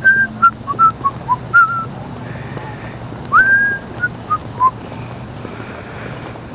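A person whistling a short tune: a quick run of brief notes, then a rising swoop held for a moment about three and a half seconds in and a few more short notes. The whistling stops shortly before the end.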